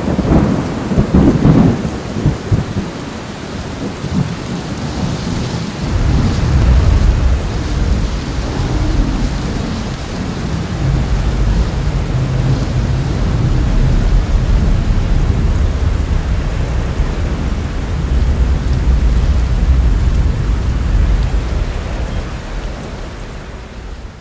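Thunderstorm: steady rain with thunder, a loud clap in the first couple of seconds and a long low rumble from about six seconds in that fades away near the end.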